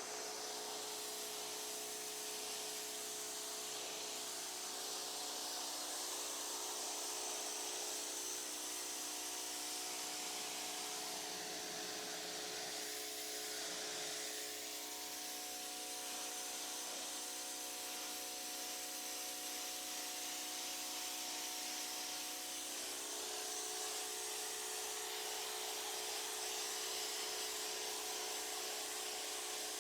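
Pressure washer running steadily, its water jet spraying the patio: a continuous hiss of spray over the machine's steady hum.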